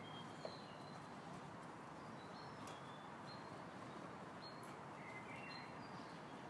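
Small birds chirping: short, high chirps scattered throughout over a steady low hiss.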